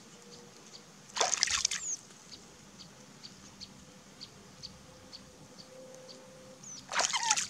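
Pond water being scooped by hand and splashed onto a baby monkey's face, twice: about a second in and again near the end, with dripping and trickling in between.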